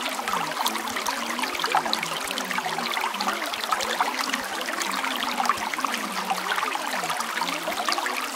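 Steady trickling, flowing water like a small stream, full of tiny splashes, with a low wavering tone underneath.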